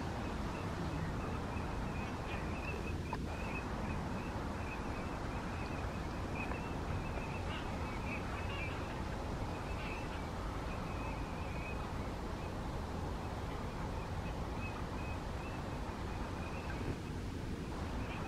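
A flock of northern lapwings calling in flight: a continuous chatter of many short overlapping calls at one pitch, thinning out briefly near the end, over a steady low rumble.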